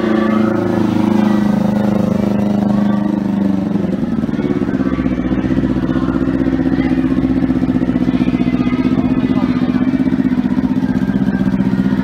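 Kawasaki Ninja sport bike's engine running, settling about four seconds in into a steady idle with an even, rapid pulse.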